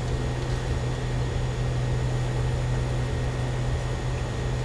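A steady low hum with an even hiss underneath, unchanging throughout.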